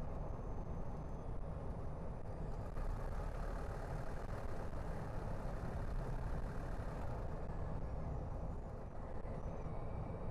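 Car driving along a road: steady low rumble of tyre and engine noise, with a little more hiss for a few seconds in the middle.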